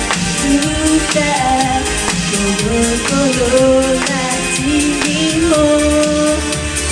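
J-pop idol song with a steady beat and a melody line moving over the accompaniment.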